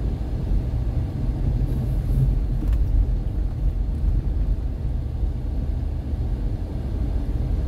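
Car driving along a road: a steady low rumble of engine and road noise.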